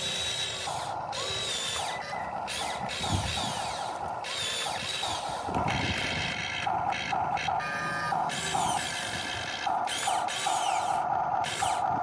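Huina 1592 RC excavator's electric gear motors whirring in repeated short spurts, starting and stopping as the boom, arm and bucket move. A single knock about three seconds in.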